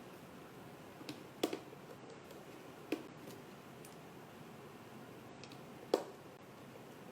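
A handful of small, sharp clicks and taps of hand tools on a phone's small internal parts, here the iPhone 6's Wi-Fi antenna being taken out. The loudest clicks come about one and a half and six seconds in.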